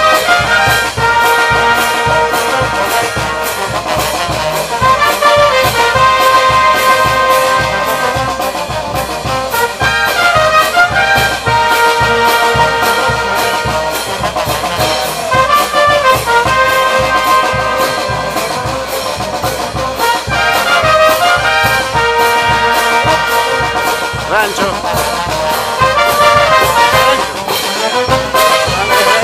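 Brass band playing: trumpets and trombones carry the melody over sousaphones, with a bass drum and snare drum keeping a steady beat.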